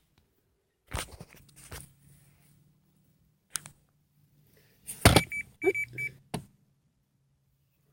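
Potatoes being handled and set down during weighing, with scattered knocks and rustles, and a digital scale giving a few short high beeps about five to six seconds in.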